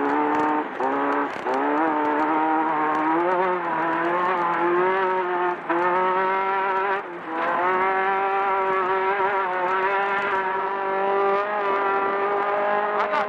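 Class 10 desert race buggy's engine heard onboard, revs climbing out of a hard right-hand corner. The revs dip briefly three times, then hold steady at high revs.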